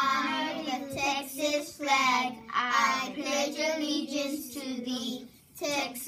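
A group of children reciting the Texas state pledge together in unison, their voices held and chant-like.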